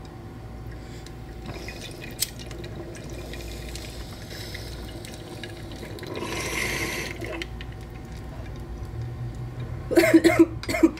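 Water bubbling in a glass mason jar bong as smoke is drawn through it, growing stronger for a second or so midway. Near the end, a few loud breathy, voice-like bursts as the smoke is exhaled.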